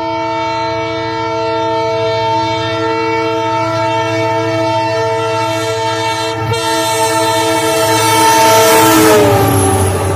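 Express train's locomotive horn blowing one long, unbroken blast as the train approaches at full speed, over the low rumble of the train. About nine seconds in, the horn's pitch drops as the locomotive passes, and the rush of the passing coaches follows.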